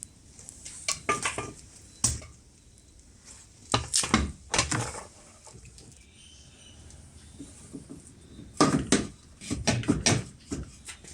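Metal knocks and clinks in bunches as an outboard's lower unit (gearcase) is worked up into place against the motor's midsection, with the greased drive shaft going into the motor.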